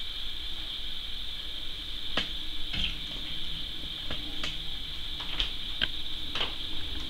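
Watercolour brush (a Lucy Goose brush) dabbing paint onto paper, making a series of about seven short, soft taps and scratches. A steady high-pitched whine sits under them.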